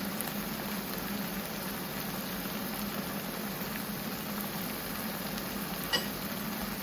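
Tomato-based stew simmering in a pot, a steady hiss, with one sharp metallic clink about six seconds in.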